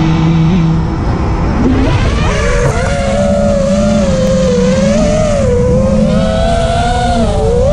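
FPV quadcopter's brushless motors and propellers whining, rising about two seconds in as it lifts off, then wavering up and down in pitch with the throttle. Heavy rumble from prop wash and wind on the onboard camera's microphone sits under the whine.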